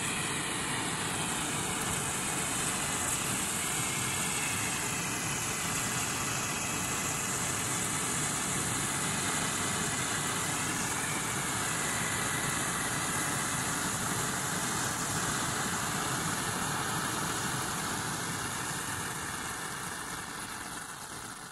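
Mr Light 2 white hand flare burning with a steady hiss of flame. The hiss fades near the end as the flare burns down.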